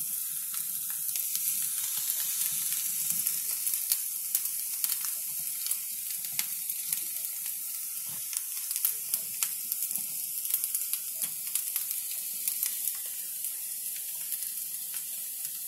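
Potato masala sizzling in hot oil in a kadai, with cooked rice piled on top: a steady hiss with frequent small pops and crackles.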